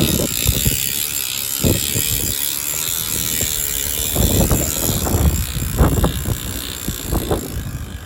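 Mountain bike rear freehub freewheeling with a loud, continuous fast buzz of ratcheting pawls, with irregular low thumps and rumble underneath. The hub has lost its grease, so the pawls run metal on metal.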